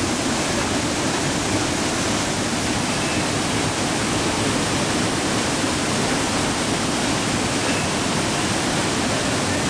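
Waterfall pouring over rocks close by, a loud, steady rush of water.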